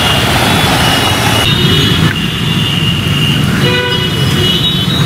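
Road traffic noise from vehicles on a waterlogged street, with vehicle horns honking; one horn sounds briefly about four seconds in.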